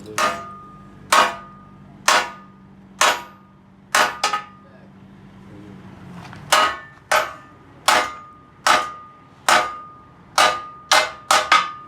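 Hammer blows on hot metal, about fifteen sharp strikes, each with a brief metallic ring. They come about once a second at first, pause briefly about halfway, then follow in a quicker run.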